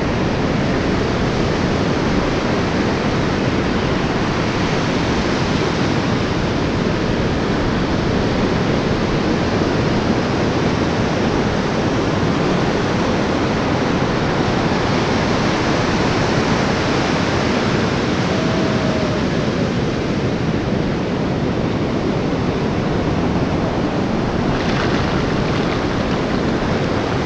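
Ocean surf breaking on the beach with wind buffeting the microphone, a loud, steady rush of noise.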